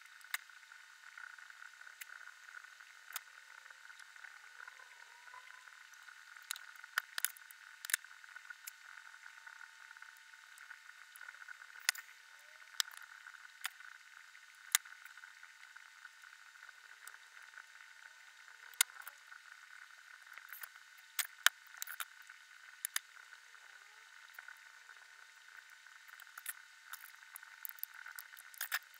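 Irregular sharp clicks and small snaps from a utility knife cutting small plastic model-kit parts off the sprue and the parts being handled and set down, over a steady hiss.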